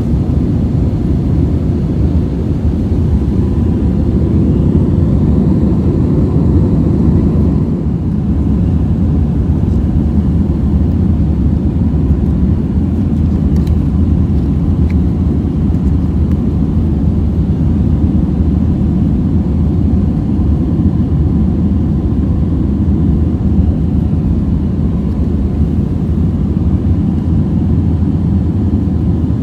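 Steady cabin noise inside an Airbus A320-200 under way: a loud, even roar of engines and airflow, with a faint steady whine above it.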